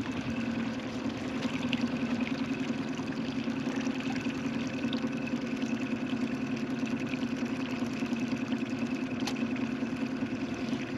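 Boat motor running steadily at trolling speed, an even hum with no change in pitch. A single short click sounds about nine seconds in.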